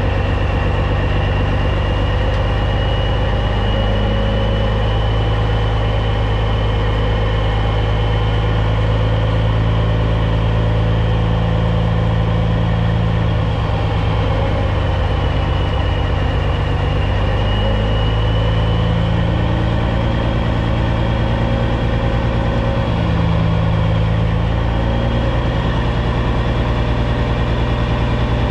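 Caterpillar C15 diesel engine of a Peterbilt 379 truck running steadily, with a faint high whine that wavers slightly in pitch above the engine sound.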